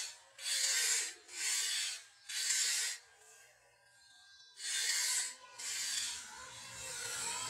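Sandpaper rubbed by hand around a rusty metal plumb bob, scraping off rust in strokes about once a second. The rubbing stops for about a second and a half near the middle, then resumes.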